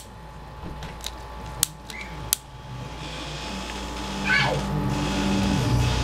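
Several sharp snaps in the first two and a half seconds as a lighter flame is held to HHO bubbles rising from a water electrolysis bucket, over the low electrical hum of the microwave transformer, which grows louder in the second half. About four seconds in there is a brief falling squeal.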